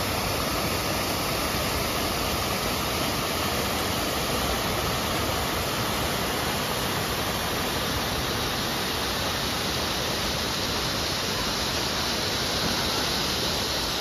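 Steady, even rush of flowing water.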